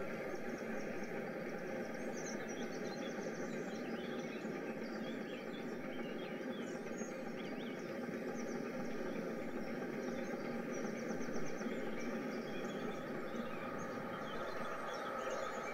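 Outdoor ambience of small birds chirping and trilling in short repeated phrases over a steady rushing background noise.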